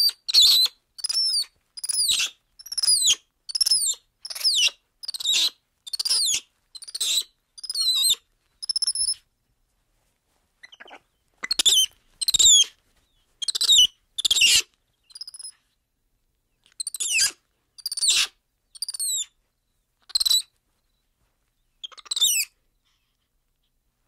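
Black-handed spider monkey giving a long series of short, high-pitched squeaky calls, each bending in pitch, about two a second at first. After a brief pause near the middle the calls resume more irregularly and stop about two seconds before the end.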